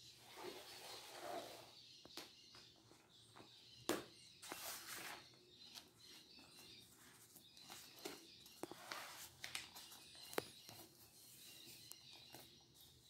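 Near silence with faint scattered clicks and soft rustles from handling a notebook and pen, and a few faint high bird chirps about nine seconds in.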